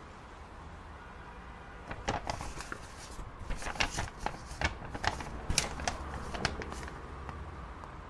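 Sheets of paper being handled and rustled: a run of irregular crisp crackles starts about two seconds in and fades near the end, over a steady low background noise.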